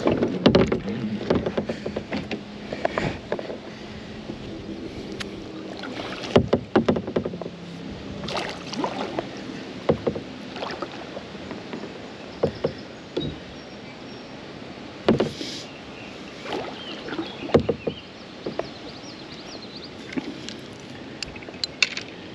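Kayak being paddled: paddle blades dipping and splashing in the river water, with irregular sharp knocks scattered throughout.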